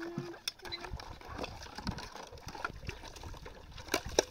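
Dishes being washed by hand in a plastic basin under water running from a hose: trickling and splashing water, with a few sharp clinks of metal dishes near the end.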